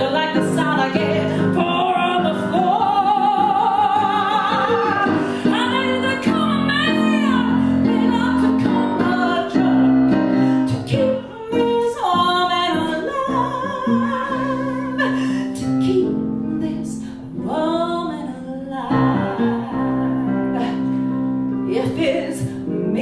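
A woman singing live into a handheld microphone over an instrumental accompaniment, holding long wavering notes.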